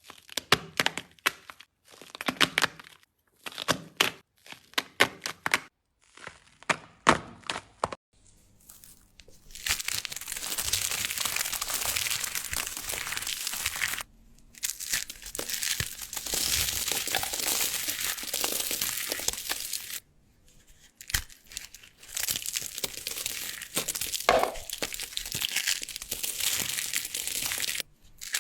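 Dry soap cracking and crumbling: clusters of sharp snaps for the first eight seconds or so, then long stretches of continuous crisp crumbling, broken off abruptly twice by edits.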